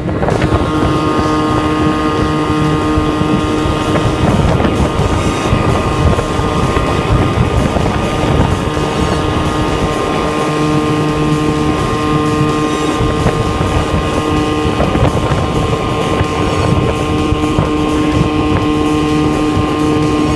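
Outboard motor of an aluminium bass boat running under way at a steady speed, with wind buffeting the microphone.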